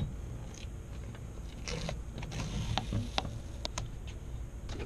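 Scattered light clicks and ticks of hands handling parts on the inside of a car door with its trim panel off, over a low rumble.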